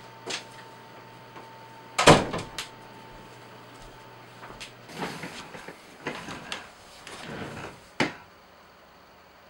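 Interior bedroom door pushed shut with one loud bang about two seconds in. Footsteps, shuffling and small knocks follow, ending in a sharp click near the end.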